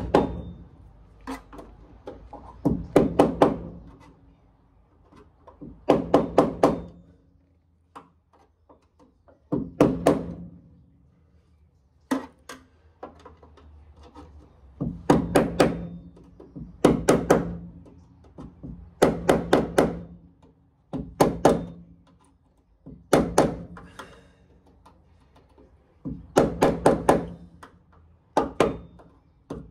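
Hammer tapping a steel floor seam on a Rover SD1 to close it up for welding: quick bursts of several sharp blows every couple of seconds, and the panel rings after each burst.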